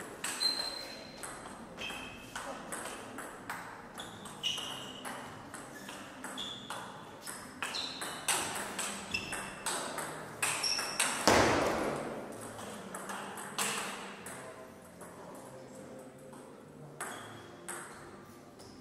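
Table tennis rally: the celluloid ball clicking quickly back and forth off paddles and table, with short high squeaks from the players' shoes. There is a louder hit about 11 seconds in. The clicks stop about 14 seconds in, with a single click later.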